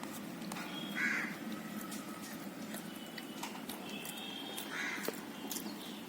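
Two short animal calls, about four seconds apart, over a steady low hum and scattered faint clicks.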